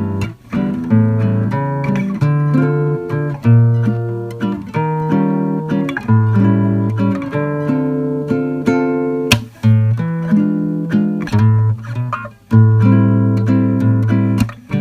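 Background music: acoustic guitar plucking a melody of notes that ring and fade, in an even rhythm, with a few brief dips between phrases.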